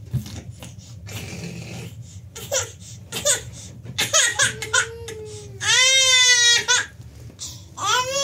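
Infant crying after being laid down on its back: a few short cries, then a long wail about six seconds in, and another cry starting near the end.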